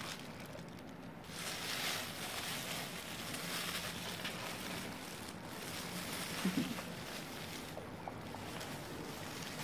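Soft rustling of disposable plastic gloves against a puppy's fur as it is held and turned, over a steady hiss. One short low sound about six and a half seconds in.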